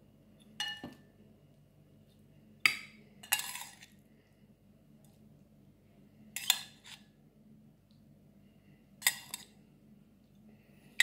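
Dishes and cutlery clinking as food is set out on plates: about five sharp clinks, one to several seconds apart, two of them close together about three seconds in.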